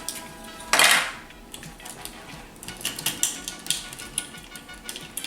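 Hard plastic toy parts clicking and clattering as armor plates are handled and fitted onto a G1 Jetfire transformer toy. There is one louder clack about a second in, then lighter scattered clicks.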